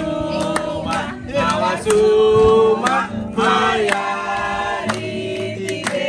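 A group of voices singing together over music with a steady beat.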